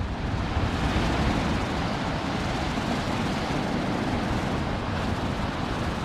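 Stormy sea surf breaking and washing up a pebble beach and concrete slipway, a steady rushing wash, with a low rumble of gusty wind on the microphone.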